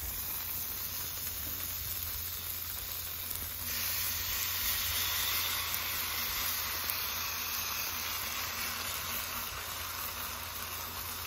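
Butter and shredded hash brown casserole mixture sizzling steadily on a hot Camp Chef flat-top griddle. The sizzle grows louder about four seconds in as the potato mixture goes into the ring onto the melted butter.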